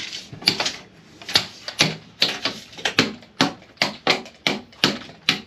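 Hammer striking steadily, about two blows a second, driving nails into plywood; roughly a dozen sharp knocks.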